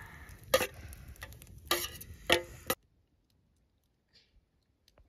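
A steel knife scraping and tapping chopped coriander off a steel plate, giving a string of sharp metallic clicks and scrapes that stop abruptly about three seconds in.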